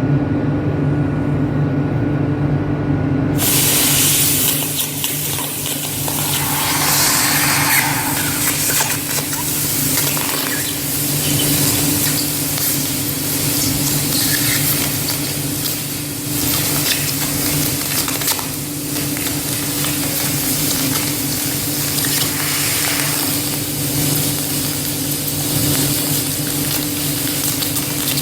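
Car engine running with a steady hum, and a hissing spray starting about three and a half seconds in: water escaping from a leaking core plug on the cylinder head.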